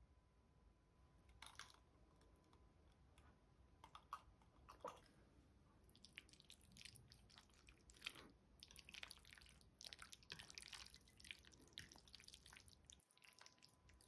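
A fork and spoon stirring and twirling thick, creamy pasta in a porcelain bowl, with wet squelching of the sauce and light clicks of metal on the bowl. A few soft clicks come in the first five seconds, and the squelching grows dense from about six seconds in.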